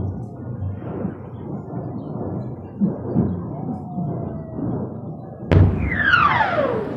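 Military ammunition depot exploding: a steady rumble with scattered dull thuds, then a sharp blast about five and a half seconds in, followed by a falling whistle.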